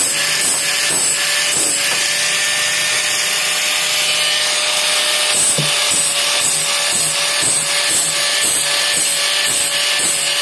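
Angle grinder running with a steady whine, its disc grinding the steel teeth of a band saw blade to sharpen them, the grinding coming in short strokes about twice a second.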